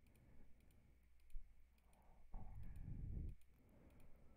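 A few faint, sharp computer clicks as a text file is edited, with a soft low rumble for about a second in the middle.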